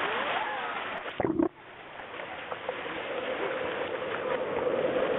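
Ocean surf washing as a steady hiss, with faint distant voices over it at first. About a second in, a brief loud rumble cuts off suddenly, then the surf noise builds back up with a steady hum underneath.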